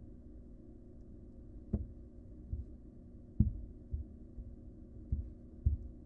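About six dull, low thumps at uneven intervals as a barn owl tugs at and lifts a rabbit carcass on the wood-chip floor of its wooden nest box, over a steady low hum.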